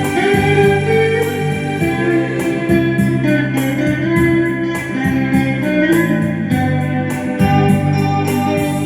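Instrumental music: a solo guitar plays a melody over sustained keyboard chords and a bass line.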